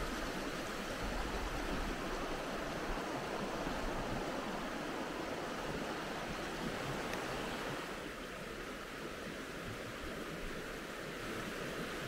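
Mountain stream flowing, a constant rush of water with no distinct events, a little softer from about eight seconds in.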